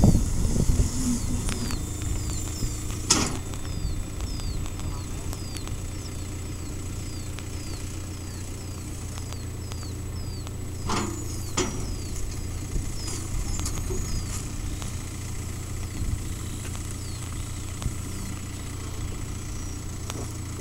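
Tractor engine running in a steady low drone. Over it a faint high falling chirp repeats about twice a second, and there are a few sharp knocks.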